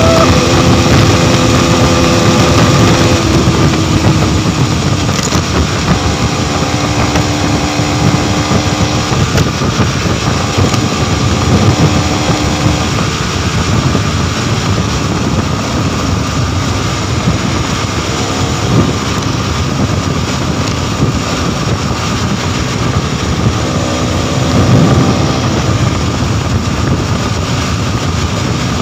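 Modenas NS200 motorcycle at highway speed: heavy wind rush over the microphone with the single-cylinder engine running underneath, easing off as the bike slows from about 150 to about 110 km/h.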